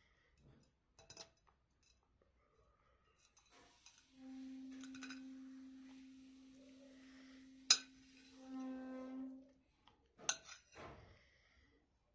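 Cutlery clinking against dishes a few times, the sharpest clink about two thirds of the way in. A steady low humming tone starts about four seconds in, is held for about five seconds, swells near its end, then stops.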